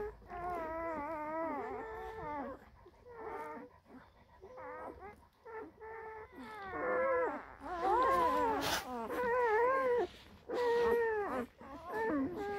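Newborn Central Asian Shepherd (Alabai) puppies crying while they nurse: a string of high, wavering whimpers, several overlapping, growing louder about halfway through.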